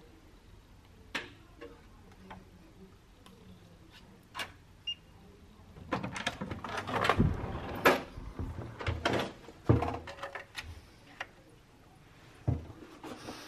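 Hotel room door with an electronic key-card lock: a few light clicks as the card is presented, a short electronic beep about five seconds in as the lock releases, then a run of clunks and knocks as the handle is worked and the door opens. Another click comes near the end.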